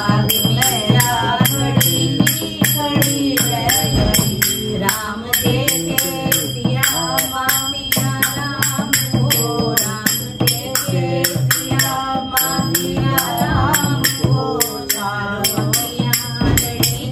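Devotional kirtan singing by several voices, accompanied by a dholak drum and small hand cymbals (manjira) struck in a steady rhythm of about four strokes a second.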